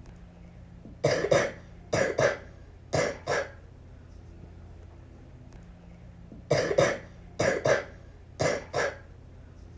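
A little girl with the flu coughing: two bouts of three coughs about a second apart, each cough a quick double burst. The second bout comes about three seconds after the first.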